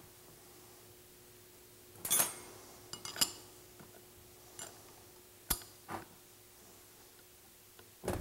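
Sharp metallic clinks and knocks of an open-end wrench handled and worked on the drain plug of a Hypro D30 diaphragm pump, as the plug is put in and tightened. About half a dozen separate clinks, the loudest two to three seconds in.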